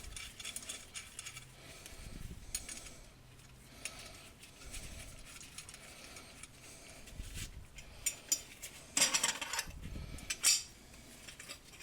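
Metal mounting hardware of a garbage disposal sink mount clinking and rattling as it is handled, with scattered small clicks and a louder rattle about nine seconds in and another shortly after.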